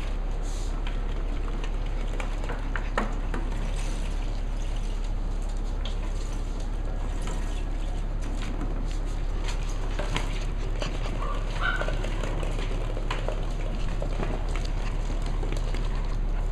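Puppies playing with plastic ball-pit balls on a wooden floor: scattered light clicks and taps of balls and paws over a steady low hum. A seven-week-old Cavalier King Charles spaniel puppy gives a couple of short high cries about eleven seconds in.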